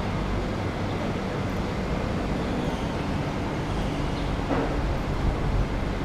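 City street background noise: a steady low rumble of distant traffic, with one brief faint sound about four and a half seconds in.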